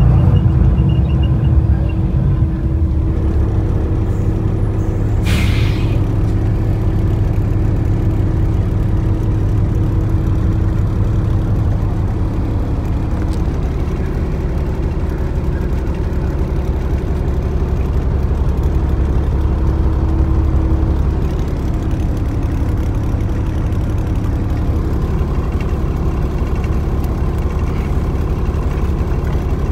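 Steady engine and road rumble heard from inside a moving coach bus, with a brief hiss about five seconds in.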